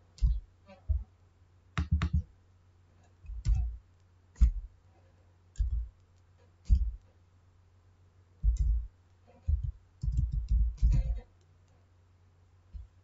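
Computer keyboard keystrokes, a few keys at a time with pauses, then a quicker run of keys about eight to eleven seconds in. Each stroke lands as a sharp click with a dull thud.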